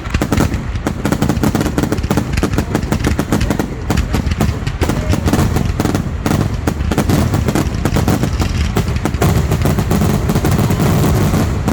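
Fireworks grand finale: a dense, rapid barrage of overlapping bangs with no let-up.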